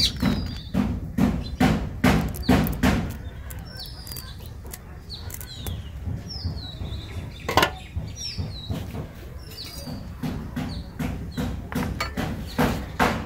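A blade scraping and cutting an Anabas (climbing perch) on a plastic tray in a series of sharp strokes, with a single loud click about seven and a half seconds in. Birds give short falling chirps throughout.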